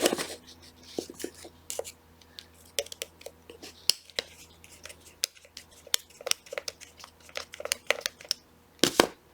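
A small screwdriver working out the screw that holds the bottom cover of a Shimano 105 shifter, with light, irregular clicks and ticks of metal on plastic and a louder double click near the end.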